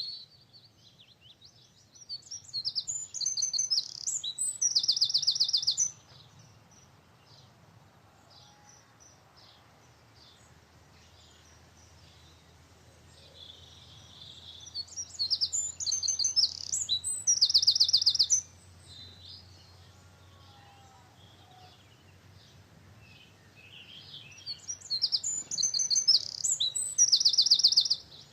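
A songbird singing three loud phrases about ten seconds apart. Each phrase builds through varied chirps into a fast trill and stops abruptly.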